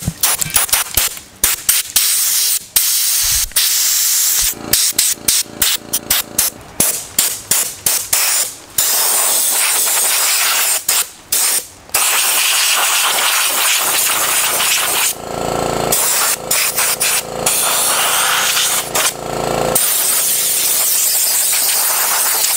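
Compressed-air blow gun blowing grime off an engine: a loud hiss in many short, quick bursts at first, then longer held blasts from about nine seconds in.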